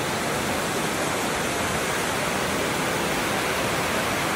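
Steady rush of an underground cave stream pouring over rocks and a low concrete weir.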